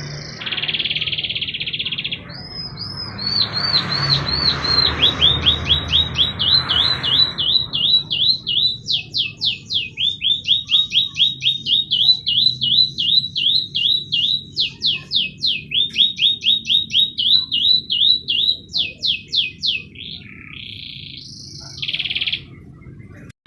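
Domestic canary singing: a long roll of rapidly repeated down-slurred whistled notes, about three or four a second, between shorter buzzy trilled phrases near the start and near the end.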